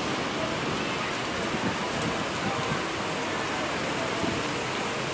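Heavy tropical downpour falling on the street and pavement, a steady dense hiss of rain.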